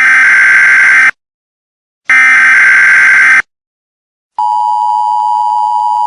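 Emergency Alert System tones: two harsh SAME header data bursts, each about a second long and a second apart. About four seconds in, the steady two-tone EAS attention signal begins.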